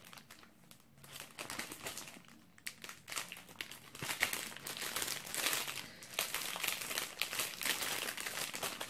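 Crinkly plastic snack packet crackling as it is handled and pulled at to get it open. It is fainter for the first few seconds, then crackles busily and irregularly.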